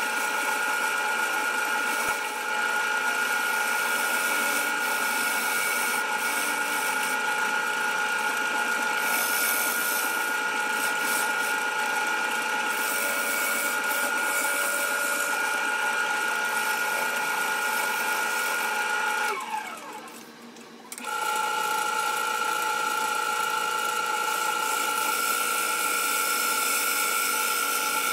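Grizzly variable-speed wood lathe running with a steady whine while a turning tool cuts a spinning aromatic cedar bowl blank, with the hiss and scrape of shavings coming off. The sound drops away briefly about two-thirds of the way through, then resumes as before.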